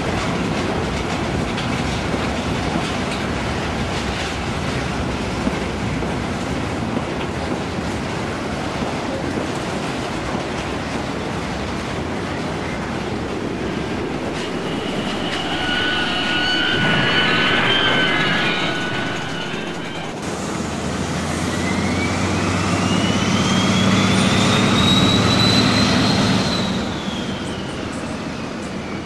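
Jouef HO-scale model draisine, converted to digital control, running along model railway track with a steady rumble from its motor and wheels. Partway through, a steady whining tone comes in; near the end, a whine rises in pitch and then falls away.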